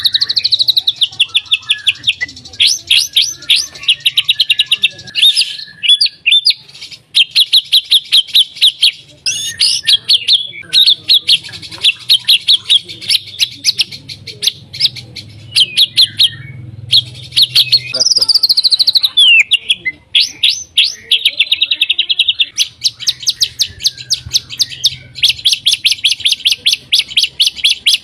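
White-rumped shama (murai batu) singing in full voice: long, high-pitched runs of fast, sharp repeated notes and trills, broken by a few brief pauses.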